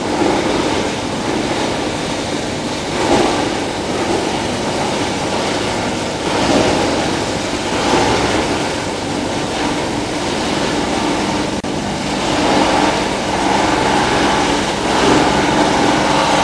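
Plastic film and woven-bag washing line running: a steady, loud machinery noise that swells a little every few seconds.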